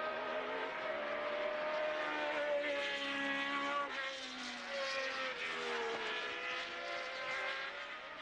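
Formula One cars running at racing speed on the circuit, several engine notes overlapping and sliding in pitch as the cars pass.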